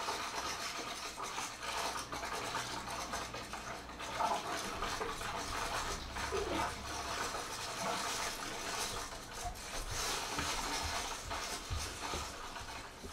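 Experimental percussion score made of continuous scratching and rubbing sounds, with a low steady hum underneath that fades out about halfway through.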